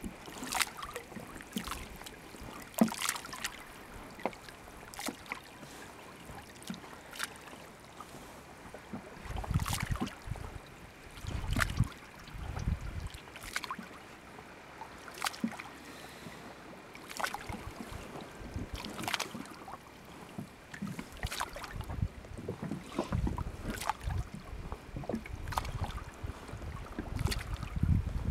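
A wet fishing net being hauled by hand over the side of a small boat: irregular drips, splashes and small knocks every second or two, with low rumbles at times.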